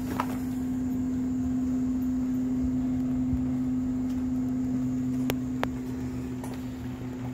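Steady electrical hum of a snack vending machine: one unbroken low tone with a fainter, deeper drone beneath it. Two sharp clicks come close together a little after five seconds in.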